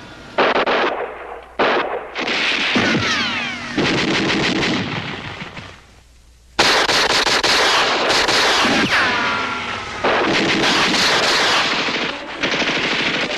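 Battle gunfire: bursts of machine-gun and small-arms fire with falling whines, a short lull a little before halfway, then heavy, near-continuous firing.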